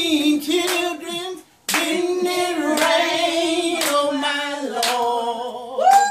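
Voices singing the long held closing notes of a spiritual, with hand claps on the beat. The singing breaks off briefly about a second and a half in, then carries on and steps down to a lower note near the end.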